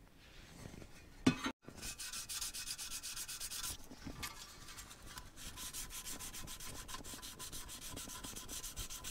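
Hand-sanding dried spot putty on a 1968 Ford Torino's metal shifter plate with a small piece of sandpaper, in quick, even back-and-forth strokes: smoothing the filler over the repair. A single sharp knock comes about a second in, before the sanding starts.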